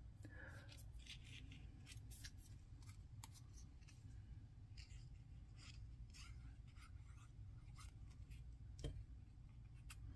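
Faint, scattered small clicks and rustles of cardstock strips being handled, glued and pressed down onto a cutting mat, with one slightly sharper click near the end.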